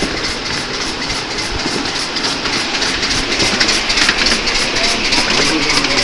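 Train running on rails: a steady rumble and rush with clickety-clack and a few faint, short squeals.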